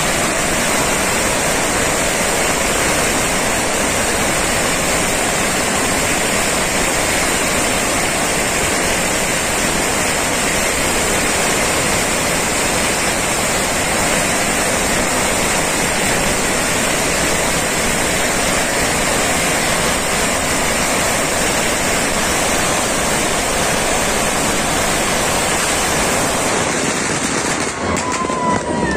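A long string of firecrackers (a Surinamese pagara) going off, the bangs merged into one loud, steady crackle that runs on without a break.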